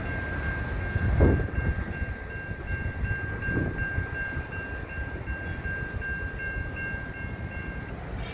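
Railroad grade-crossing warning bell ringing in rapid repeated strokes, signalling an approaching train, until it stops near the end. Underneath is a low rumble that swells about a second in.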